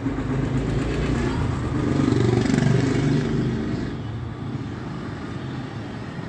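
A motor vehicle's engine passing by: its low rumble swells to a peak about two and a half seconds in, then fades away.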